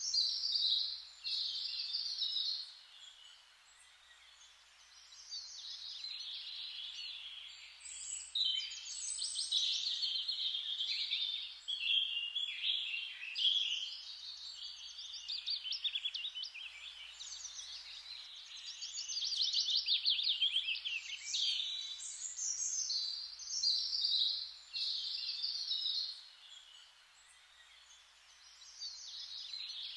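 Songbirds singing in overlapping phrases, some of them fast trills, with lulls a few seconds in and near the end. A faint steady hiss runs underneath.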